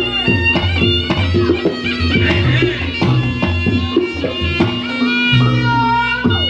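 Reog Ponorogo gamelan accompaniment: a shrill slompret (double-reed shawm) plays a wavering, sustained melody over kendang drum strokes and gong beats.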